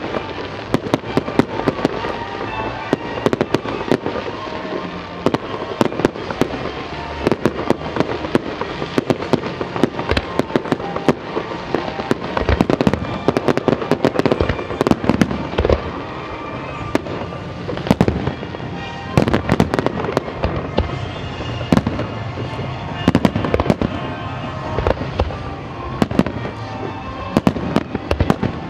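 Fireworks display: aerial shells bursting in a continuous barrage, many sharp bangs in quick succession with crackle, over music playing underneath.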